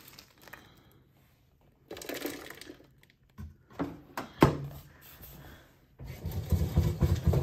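A fistful of dried and candied fruit rustles into a bread machine pan, then the lid shuts with a sharp clack. About six seconds in, the Zojirushi Virtuoso Plus's kneading comes in as a loud, fast, rhythmic churning, working the fruit into the panettone dough.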